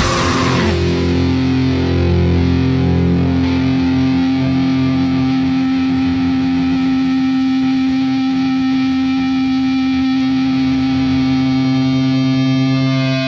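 The full band with drums cuts off in the first second, leaving a distorted electric guitar chord ringing on steadily through the amplifier. Right at the end the held sound changes to a different, higher sustained tone.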